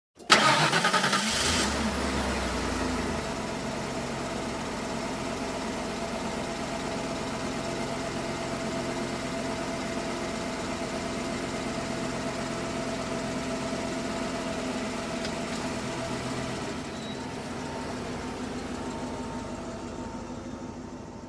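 Car engine starting: it catches at once with a brief loud burst, then settles into a steady idle that dips slightly and fades out near the end.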